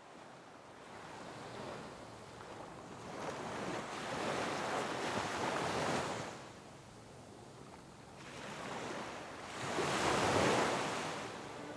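Waves washing in, a rushing noise that rises and falls in two slow swells: one building through the middle and dropping away, a second near the end.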